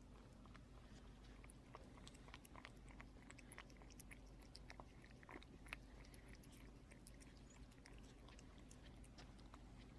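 A cat eating shredded wet canned cat food from a glass bowl: faint, irregular quick clicks and smacks of chewing and lapping, over a low steady hum.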